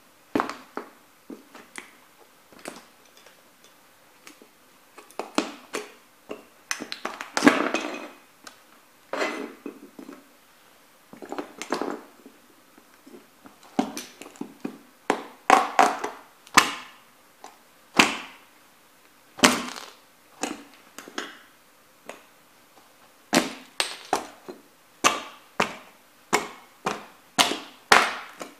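Sneaker soles stomping on and grinding the broken plastic and metal pieces of a toy truck on a hard board: sharp thuds and crunches, irregular at first, then a quick run of stomps about two a second near the end.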